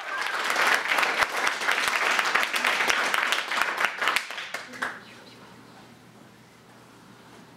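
Audience applauding, with some voices mixed in, dying away about five seconds in to a faint low hum.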